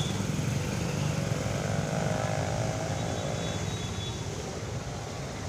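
Steady engine rumble with a faint whine in the middle, easing off over the last couple of seconds.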